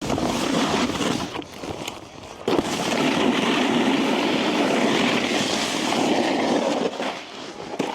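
A rider sliding and carving down a packed snow slope: a steady scraping hiss of edges on snow that dips twice, returning abruptly about two and a half seconds in.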